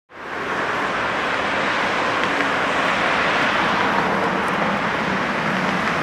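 Traffic on a wet city street: a steady hiss of car tyres and engines, fading in quickly at the start.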